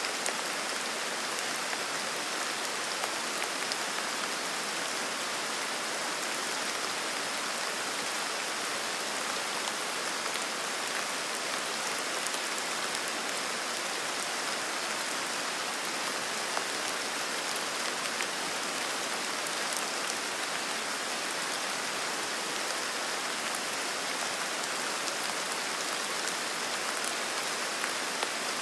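Steady rain falling on foliage and the ground in a forest: an even hiss with many small drop ticks, unchanging throughout.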